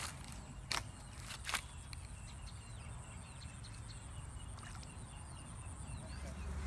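Three sharp crackles in the first second and a half, footsteps on dry leaves along the pond bank. After that come many faint short bird chirps over a steady thin high whine.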